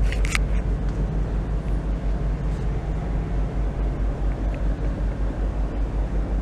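Kobelco 7250 crawler crane's diesel engine idling, a steady low throb with an even, rapid pulse. A couple of short clicks right at the start.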